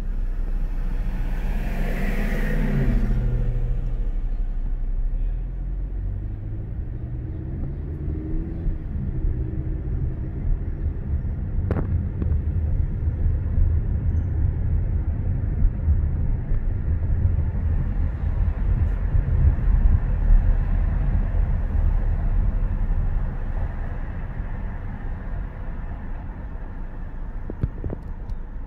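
Car engine and road rumble heard from inside the cabin while driving in slow city traffic. About two seconds in, a louder passing sound falls in pitch. Around six seconds in, the engine note rises as the car pulls away and picks up speed.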